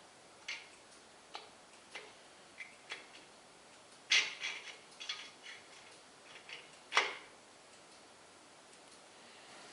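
Scattered light metallic clicks and knocks of tools and parts being handled during engine assembly, with a brief clatter about four seconds in and a sharper knock about seven seconds in.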